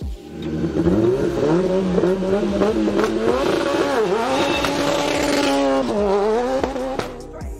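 Racing car engine revving hard: its pitch climbs over the first second and holds high, dips briefly about four seconds in, rises again, then drops away near six seconds and fades out.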